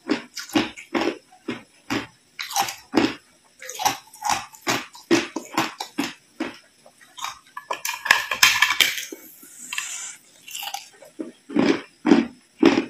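Hard ice being chewed, the crunches coming about two a second, with a longer crackling crunch about eight seconds in.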